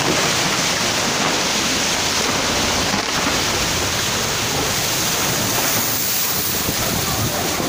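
Heavy monsoon rain and fast-flowing muddy floodwater: a loud, steady rushing noise with no breaks.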